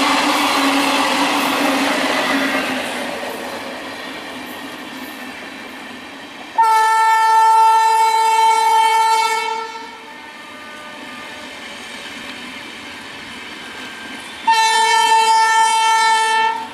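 The running noise of a passing electric train fades away over the first few seconds. Then a train horn sounds two long, steady blasts: one of about three seconds, and a second near the end.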